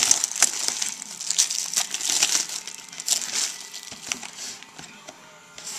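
Clear plastic shrink-wrap crinkling and tearing as it is pulled off a sealed box of trading cards. The crackling is dense for the first three seconds or so, then dies down.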